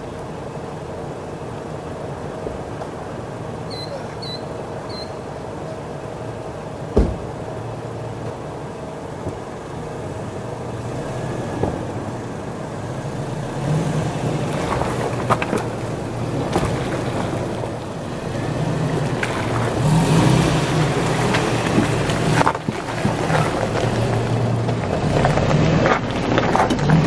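Steady rush of a shallow stream, with three short high chirps about four seconds in and a single thump about seven seconds in. Background music comes in around the middle and grows louder.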